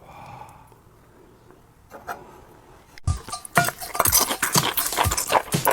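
Close-miked eating: biting into and chewing meat, with wet mouth clicks and smacks. Faint for the first three seconds, then starting suddenly about three seconds in as a dense, irregular run.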